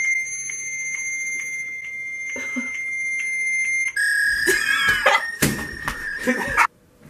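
Phone-line signal tones through a phone's speakerphone: a steady high electronic tone for about four seconds, then a warbling, screechy electronic signal that cuts off suddenly.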